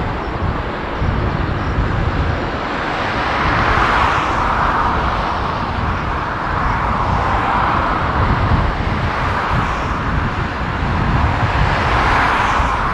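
Jet noise from a Boeing 747-8F freighter's four GEnx engines as it climbs away at takeoff power: a steady low rumble under a rushing hiss that swells and eases about every four seconds.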